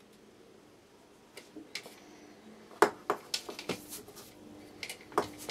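Scattered small metallic clicks and taps of long-nose pliers and a soldering iron against the circuit board and wire while an ESC lead is soldered onto a quadcopter's power distribution board. The sharpest clicks come about three seconds in and again near the end, over a faint steady hum.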